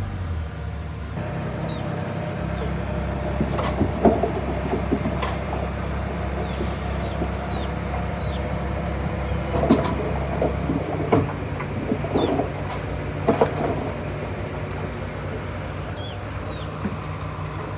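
Diesel engine of a heavy earthmoving machine running steadily under load, its note shifting about a second in and again around eleven seconds in. Repeated sharp metallic clanks and knocks of rock and steel come through over it.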